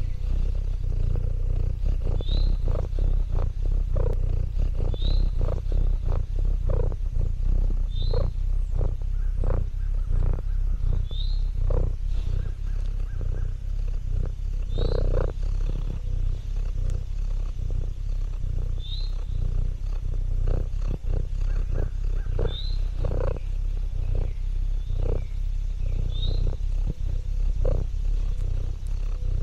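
Domestic cat purring close up: a steady low rumble, with soft irregular clicks over it and a short high chirp repeating about every three seconds.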